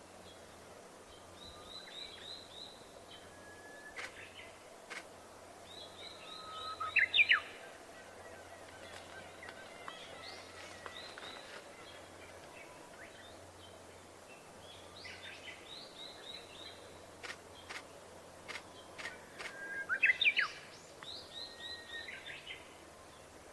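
Male blue-and-white flycatcher singing: phrases of clear whistles and fast repeated notes, loudest about seven seconds in and again about twenty seconds in, with quieter phrases between.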